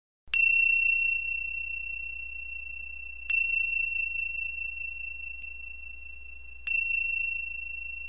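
A high-pitched bell struck three times, about three seconds apart, each strike ringing on clearly and slowly fading before the next.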